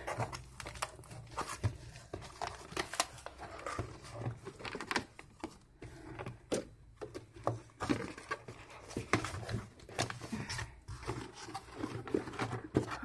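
Cardboard shipping box being handled and opened by hand: flaps folded back, cardboard rustling and scraping, with many irregular taps and knocks as a black rigid gift box is lifted out of it.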